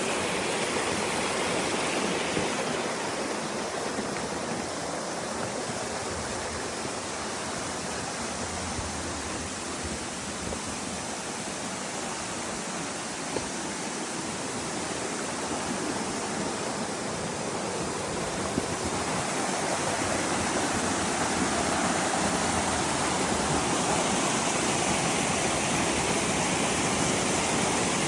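Waterfall: a steady rush of falling water that grows a little louder about two-thirds of the way through.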